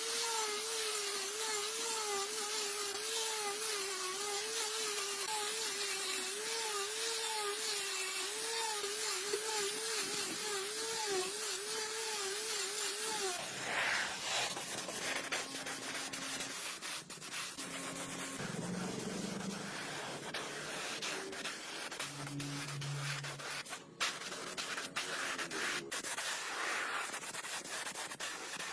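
Sanding on a metal part: a small power tool's motor whines with an even wobble in pitch for about the first thirteen seconds, then gives way to scratchy rubbing and scraping.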